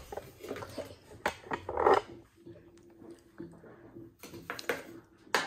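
A plastic scoop and detergent powder being handled: light clicks and knocks, with a short scraping rustle about two seconds in, as powder is scooped and poured into a washing machine's detergent drawer.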